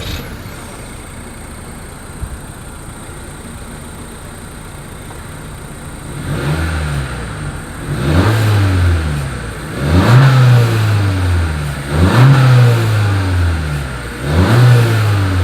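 2020 Honda CR-V's 1.5-litre turbocharged inline-four heard at its dual exhaust outlets, idling steadily, then revved in five quick blips from about six seconds in, each rising sharply and falling back, roughly two seconds apart.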